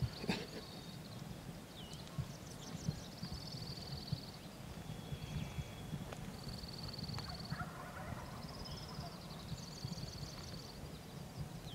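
Songbirds singing, with high, fast trills repeating every couple of seconds, and a distant wild turkey gobbling about eight seconds in. A low rumble with soft knocks runs underneath.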